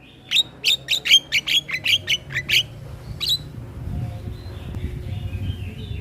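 Male Javan myna singing: a fast run of about a dozen sharp, loud notes over the first two and a half seconds, one more note about a second later, then softer chattering notes.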